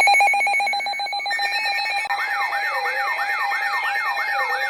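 Electronic alert tones from an emergency alert broadcast: a loud, rapidly pulsing buzz-like tone, joined about a second in by a steady higher tone. About two seconds in, a fast siren-like wail starts, sweeping up and down about three times a second.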